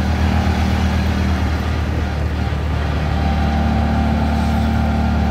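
Auto-rickshaw (tuk-tuk) engine running steadily while under way, over road and traffic noise. Its note shifts a little about two to three seconds in.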